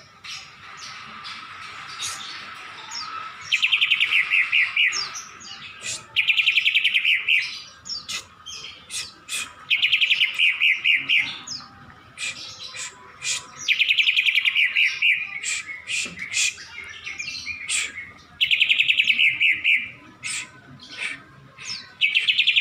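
Pet bird singing in bursts of rapid, even trills, five or six of them each lasting a second or two, with single short chirps in between.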